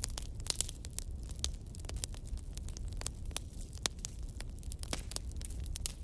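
Wood fire in a fireplace crackling: irregular sharp pops and snaps a few times a second over a low steady rumble.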